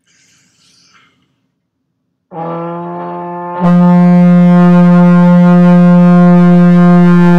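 Tenor trombone played by a student in a lesson: one long held note that comes in softly, swells much louder about a second later, then stays steady at a single pitch.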